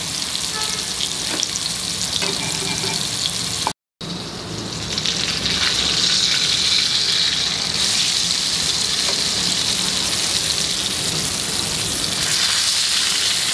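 Marinated fish pieces sizzling in hot oil in a frying pan. The sizzle cuts out for a moment about four seconds in and comes back louder.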